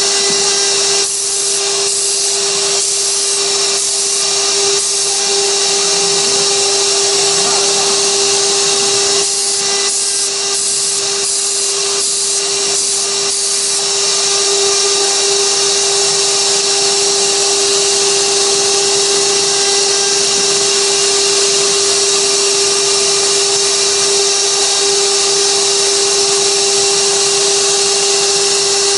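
Spindle of a 6060 CNC router running at a steady high whine while carving a 3D relief in wood, with a hissy cutting noise. In the first half the noise dips briefly, about once a second, as the bit moves through its passes.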